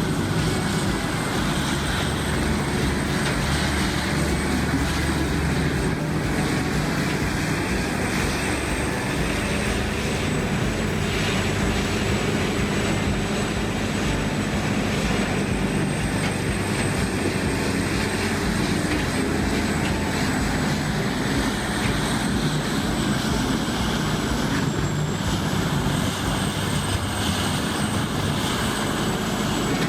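CBI Magnum Force 8400 horizontal grinder running steadily as it grinds logs into sawdust, its big engine droning continuously.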